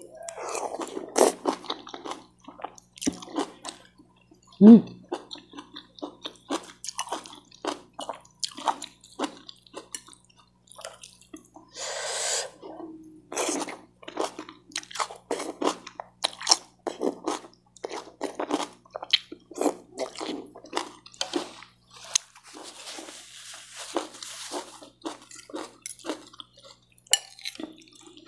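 Close-miked eating: a woman chewing and slurping saucy fried noodles, with many quick wet mouth clicks and smacks and a few longer slurps as she sucks noodles in.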